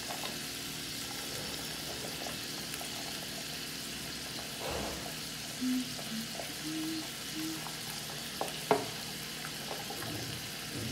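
Steady sizzle of chow mein frying in a large pan as julienned carrot and chayote are dropped in by hand, with scattered small clicks and one sharp knock about three quarters of the way through.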